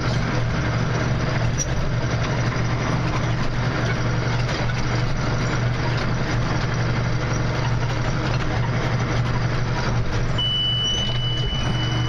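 Tractor and John Deere round baler running steadily, a low drone heard from inside the cab. About ten seconds in, a steady high-pitched tone from the baler monitor starts and holds: the alarm that the bale has reached its set size.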